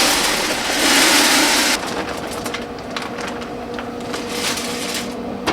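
Mesquite wood pellets poured from the bag into a pellet grill's hopper: a loud rushing rattle for the first couple of seconds, then a run of lighter clicks and rustles as the last pellets trickle in and settle.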